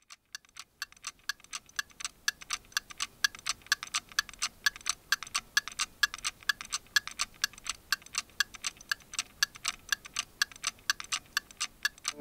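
Fast, even clock-like ticking, several ticks a second, with alternate ticks slightly different in tone like a tick-tock. It fades in over the first couple of seconds, then holds steady.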